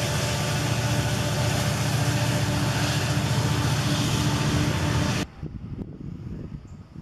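Freight train of covered hopper cars rolling past close by: a steady, loud rumble of wheels on rail. It cuts off abruptly about five seconds in, leaving a much quieter background.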